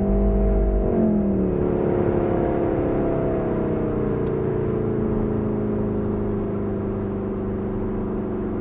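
Volkswagen Golf 7 R's turbocharged four-cylinder engine shifting gear at the start, then running with its revs falling slowly and steadily.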